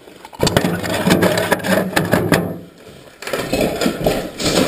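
Close, clattering handling noise as the camera is fiddled with and set in place, a dense run of clicks and knocks, followed after a short pause by footsteps crunching across a floor littered with paper and debris.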